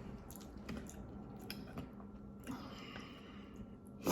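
A person chewing food close to the microphone, with small wet mouth clicks and a louder short sound right at the end.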